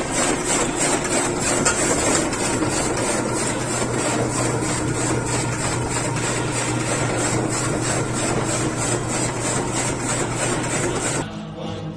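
Belt-driven forage chopper running steadily and chopping green grass, a steady machine hum under a dense hiss of cut material. It cuts off suddenly near the end and music begins.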